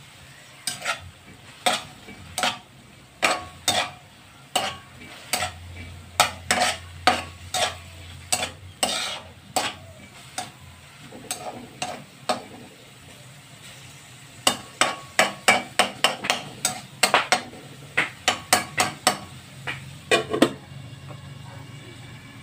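A spatula scraping and knocking against a metal wok as pork cubes are stirred and fried, in quick runs of strokes with a pause of a few seconds midway, over a faint sizzle.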